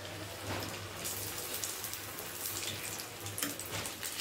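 Breadcrumb-coated pomfret pieces deep-frying in hot oil: a steady sizzle with scattered crackles and pops.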